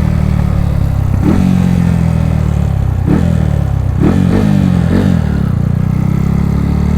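Single-cylinder four-stroke engine of a Honda Fan 125 bored out with a 170cc kit, running flat out at full throttle. The engine note holds steady and climbs slowly near the end, with a few brief blips over it.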